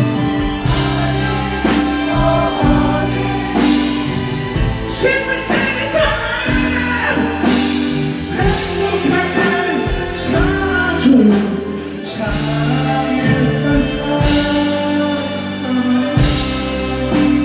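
Live band music with a singing voice, the voice sliding through held notes over the instruments and drums.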